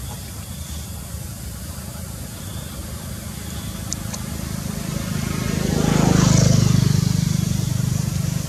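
Low engine hum of a motor vehicle, growing louder to a peak about six seconds in and then easing off as it passes.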